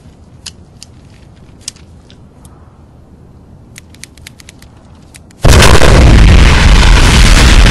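A handheld remote detonator clicking faintly several times, then, after about five seconds, a huge building explosion that comes in suddenly and keeps going loud to the end.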